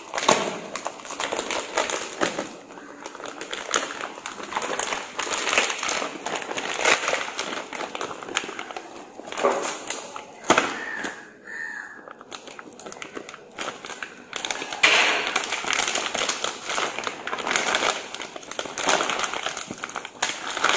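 Clear plastic bag crinkling and crackling as it is pulled open and worked off a spool of 3D-printer filament by hand, in irregular rustles.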